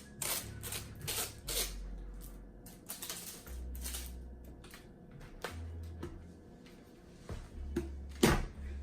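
A taped plastic snack package being pulled and torn open: short irregular crinkles and rips, the loudest near the end. Faint background music with a low bass line plays underneath.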